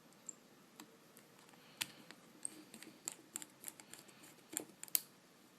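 Small screwdriver working a tiny screw back into an iPhone 3G/3GS: a string of light, irregular clicks and ticks of metal on metal, with the sharpest about two seconds in and near the end.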